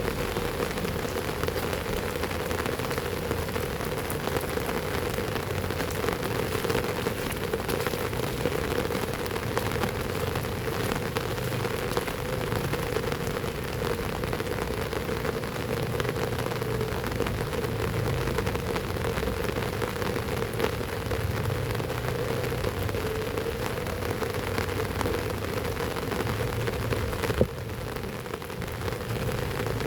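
Heavy rain falling steadily, with a single sharp click near the end.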